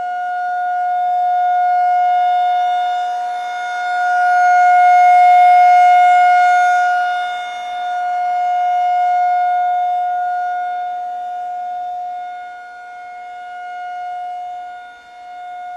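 Outdoor tornado warning siren sounding a steady alert tone: one held pitch that swells louder and fades every few seconds.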